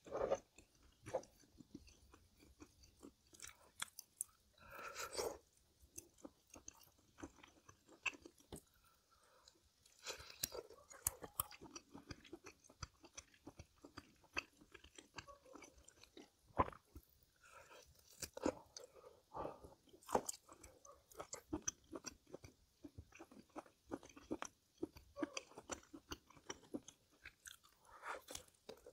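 Close-miked chewing and crunching of food, with irregular wet clicks and crisp bites: a person eating with their mouth near the microphone.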